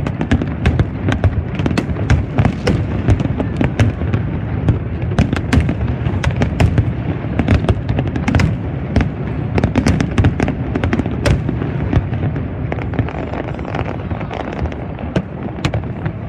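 Aerial fireworks display: a dense, rapid barrage of shell bursts, many sharp bangs over a constant low rumble, thinning a little in the last few seconds.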